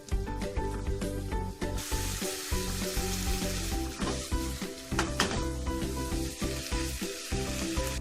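Shirataki noodles and bean sprouts sizzling as they fry in a pan. The sizzle starts about two seconds in and eases off near the end, over steady background music.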